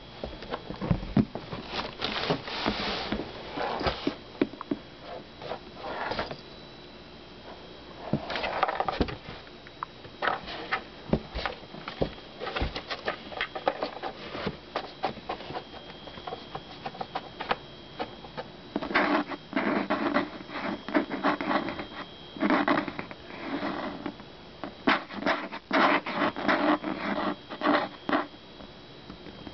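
Maine Coon mix kitten scrabbling and scratching at a cardboard box as it plays inside, in irregular bouts of rapid scraping strokes with sharp knocks against the cardboard, busiest in the second half.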